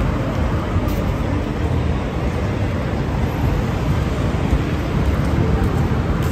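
Traffic noise on a busy city street: cars running along a multi-lane avenue, a steady, mostly low rumble with no distinct single event.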